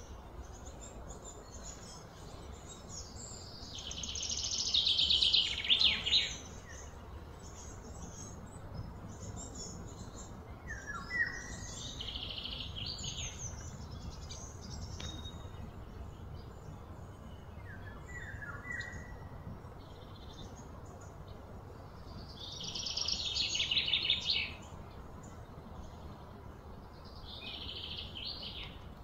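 Birds calling and singing: short high chirps now and then, and several louder high trills lasting two to three seconds each, the loudest about four and about twenty-three seconds in, over steady low background noise.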